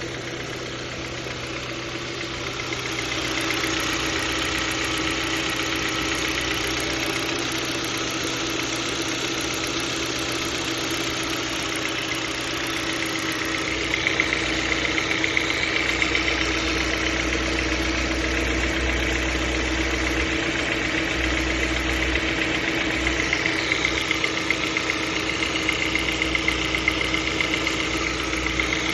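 Kia Ceed JD's G4FG 1.6-litre four-cylinder petrol engine running with a knock in it, sharp regular ticks standing out over the steady engine sound from about halfway.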